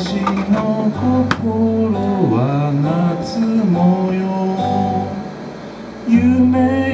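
A man singing to his own acoustic guitar, the voice gliding between held notes over low plucked bass notes. The music softens briefly about five seconds in, then the singing returns louder.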